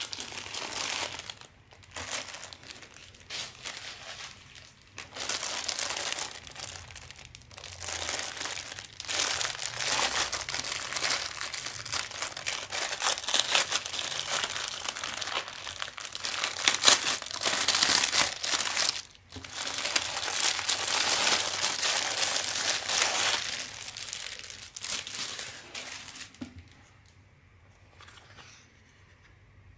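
Clear plastic bag of a stamped cross-stitch kit crinkling and crackling as hands handle and open it, with a brief pause about two-thirds of the way through. The crinkling stops a few seconds before the end.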